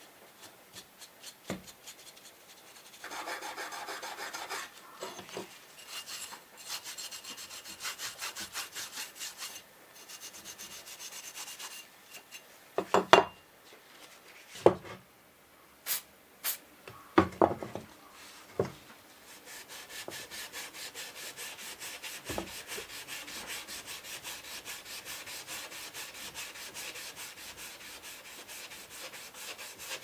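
Scrubbing of old sewing-machine metal parts with a green abrasive pad: rubbing strokes in the first part, then quick, even back-and-forth strokes from a little past the middle. Around the middle come a few sharp knocks and two short hisses of aerosol spray.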